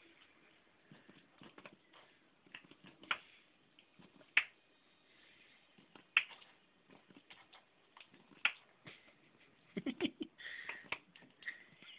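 Irregular sharp clicks and taps on a tile floor from a toy spider on a wire and cats' paws batting at it, with a quick run of duller thumps about ten seconds in.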